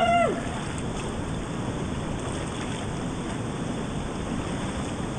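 Whitewater of a river rapid rushing steadily over rocks, with a short shouted call from a voice just at the start.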